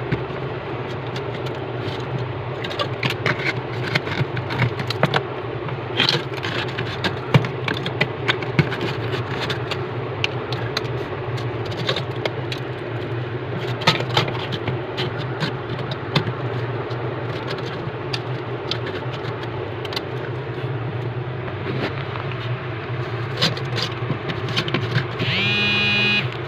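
Irregular metallic scrapes and clicks over a steady low hum, such as ice being chipped and scraped out of a frosted-up deep freezer.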